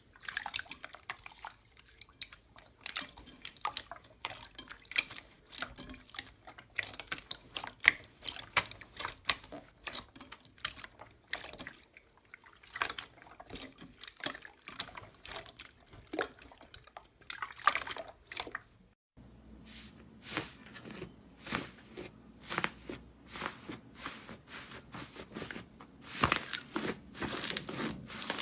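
Slime being squeezed and poked by hand: a dense run of small wet clicks and pops, with a brief silence about two-thirds of the way in.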